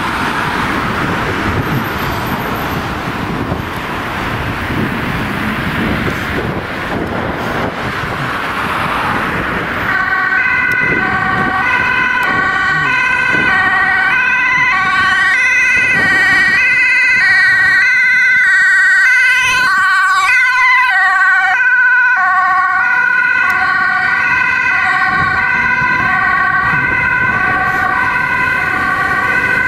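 Road traffic, then about ten seconds in a Dutch ambulance's two-tone siren comes on loud, stepping back and forth between a high and a low tone as the ambulance passes and drives off.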